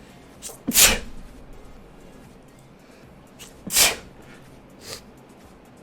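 A person sneezing twice, about three seconds apart. Each sneeze has a short catch of breath just before it, and there is a smaller, quieter burst near the end.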